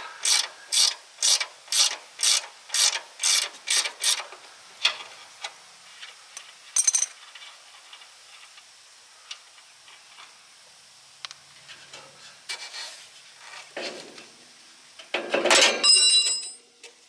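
Hand ratchet wrench clicking in even strokes, about two a second, for the first four seconds as it spins off a loosened nut on a shock absorber mount. A few light metallic clicks follow, then near the end comes a louder clattering scrape with a brief metallic ring.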